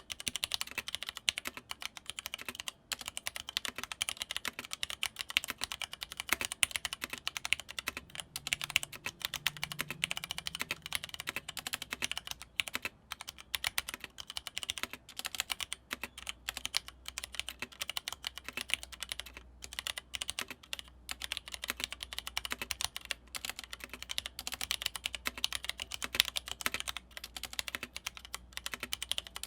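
Fast, continuous typing on a Leopold FC660M mechanical keyboard with Cherry MX Red linear switches: a dense stream of keystroke clacks, with only a few brief pauses.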